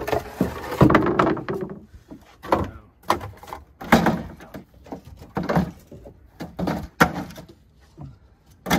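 Irregular knocks, bumps and scrapes of demolition debris from an old fiberglass shower being handled and moved.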